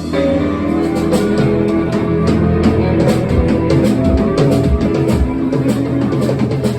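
Live rock band playing: electric guitar and bass over a drum kit with steady beats, at full volume.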